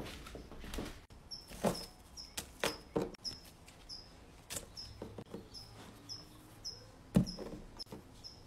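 Rabbit nibbling a lettuce leaf: irregular crunchy chewing and crinkling of the leaf, with a sharp knock near the end. A short high chirp repeats about twice a second.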